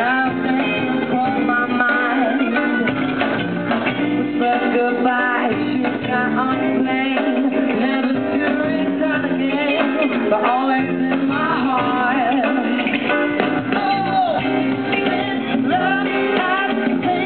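A male singer singing a song live into a handheld microphone, backed by a band with piano and guitar.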